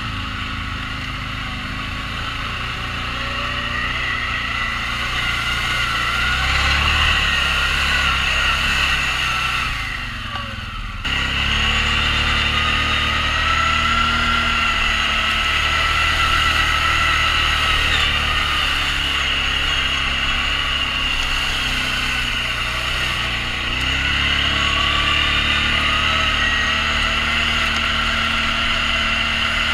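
Off-road vehicle engine running under changing throttle, its pitch rising and falling. The sound drops briefly and then comes back abruptly about eleven seconds in.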